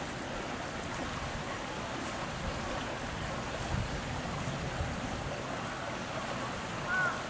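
Steady hiss of outdoor background noise. Near the end comes one short arched call, the first of a series repeating about every half second.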